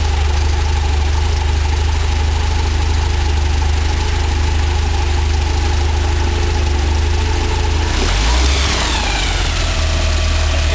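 Converted automobile engine of a microlight powered hang glider trike running steadily. About eight seconds in the sound swells briefly and a whine falls in pitch.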